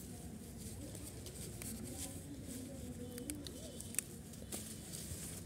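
Brinjal plant leaves and stems being handled while a long eggplant is picked: soft rustling and a few sharp clicks about three to four and a half seconds in. Quiet background throughout.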